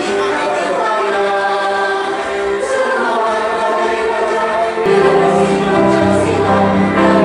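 A choir singing a slow song in held notes, with lower parts coming in and the sound growing louder about five seconds in.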